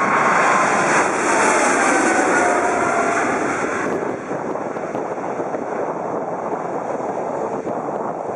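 Boeing 777-300ER's twin GE90-115B turbofans at takeoff thrust as the jet climbs past close by: loud jet noise with a whine that falls in pitch as it passes. About four seconds in the high hiss drops away, leaving a duller, steadier rumble as the aircraft climbs away.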